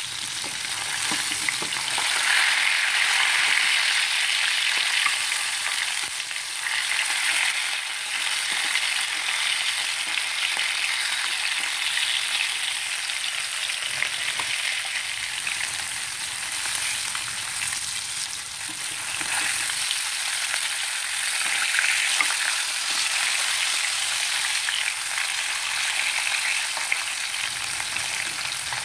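Rohu fish steaks shallow-frying in hot oil in a nonstick pan, a steady sizzle with occasional light clicks of a fork and spatula as the pieces are turned.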